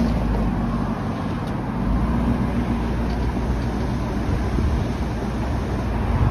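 Supercharged 5.7-litre V8 of a Tundra-swapped 4Runner idling steadily, a low rumble.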